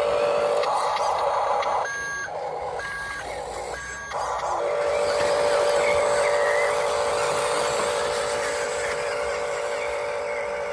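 Electric drive of a Huina radio-controlled construction toy whining steadily. Three short electronic beeps about a second apart break in a couple of seconds in, then the whine resumes.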